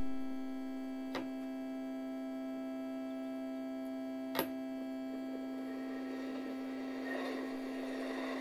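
Steady electrical hum with a stack of overtones, broken by two sharp clicks, one about a second in and one about four seconds in. A rushing noise grows under the hum over the last few seconds.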